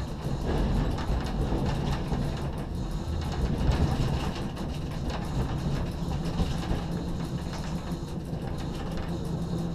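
Cab noise of a Z 6400 electric multiple unit rolling over the tracks and points, a steady low rumble. From about six seconds in a low steady hum joins it.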